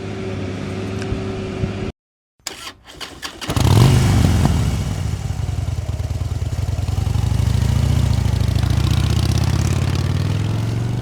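An engine starts about three and a half seconds in, after a few clicks, then keeps running steadily. Before it there is a steady hum, cut off by a brief silence.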